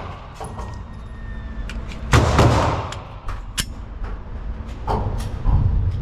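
Several gunshots. The loudest comes about two seconds in and rings out, followed by a sharp crack and a few fainter shots near the end.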